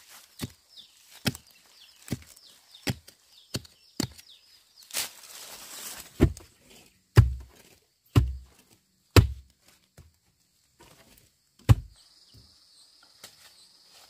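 A long-handled digging tool chopping into soil and roots at the base of a tree: sharp strikes about one a second, turning heavier and deeper from about six seconds in, with a brief rush of scattering soil just before. A last strike comes near the end.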